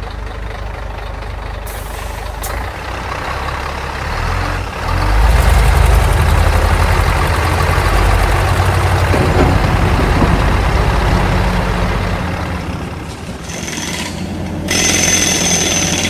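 Traffic sound effect: a heavy vehicle engine rumbling. It swells about five seconds in and eases off after about twelve seconds, and higher steady tones come in near the end.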